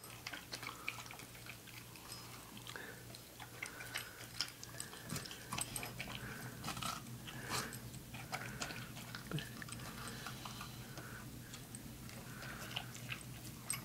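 Australian Cattle Dog biting and chewing honeydew melon: irregular short crunches and snaps from its jaws.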